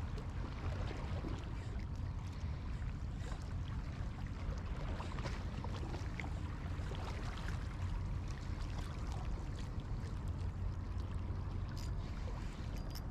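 Small waves lapping and trickling against shore rocks, with many small splashes over a steady low rumble.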